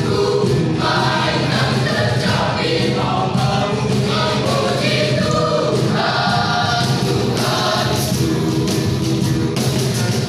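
Church youth choir singing a gospel song, many voices together without a break.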